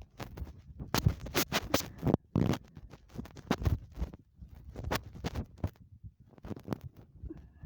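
Heart-sound recording from a microphone held against the body, dominated by scratching and rubbing knocks that come irregularly and vary in loudness; the heartbeat itself does not stand out clearly.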